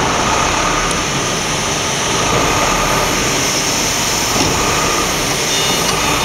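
Rotary sole injection moulding machinery running with a steady, dense drone and a low hum. Faint high-pitched beeps start near the end.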